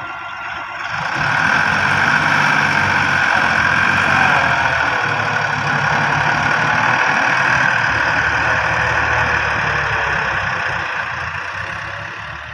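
Heavy diesel machinery engine running steadily, growing louder about a second in and easing off slightly near the end.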